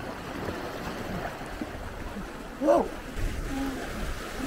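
Lake waves washing against the shore in the wind, a steady rush of water. About two-thirds of the way through, a short sharp vocal cry rises and falls.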